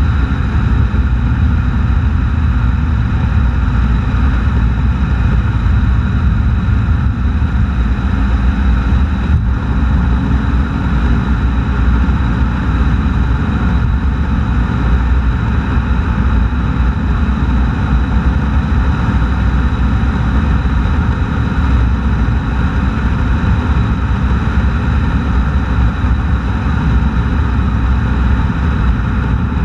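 Steady wind rumble and tyre-on-asphalt road noise from a car cruising at highway speed, picked up by a camera mounted low on the outside of the car.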